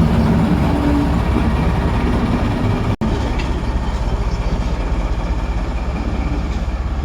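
Steady low rumble of a train on the move, broken briefly about three seconds in.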